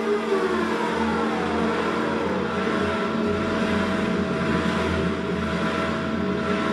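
Electronic dance score: a dense, steady drone of held tones over a low hum, with several tones sliding downward in pitch over the first two seconds or so.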